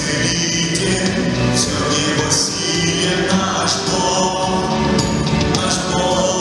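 Live church worship music: a man sings lead into a handheld microphone over the band's accompaniment, amplified through the hall's sound system.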